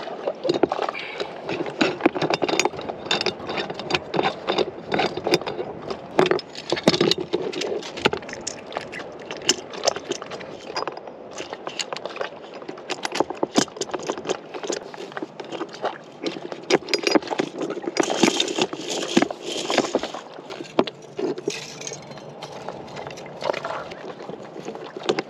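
Irregular clicks, clinks and scrapes of metal sailing hardware being handled and fitted: a block and a stainless steel shackle.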